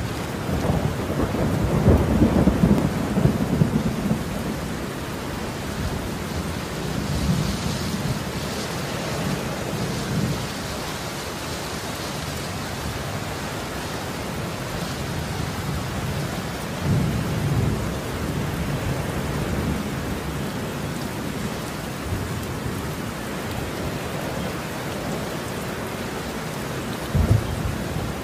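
Heavy rain pouring steadily, with deep low rumbles swelling over it several times, the strongest in the first few seconds and a short one near the end.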